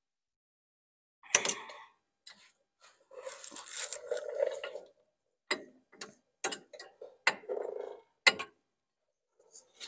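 A hand ratchet and socket working a brake caliper mounting bolt: a sharp metallic click about a second in, a longer rattling stretch, then a string of separate ratchet clicks about half a second apart as the bolt is tightened.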